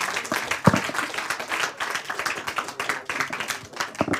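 Audience applauding, many hands clapping at once, with a single loud low knock about a second in; the clapping thins out near the end.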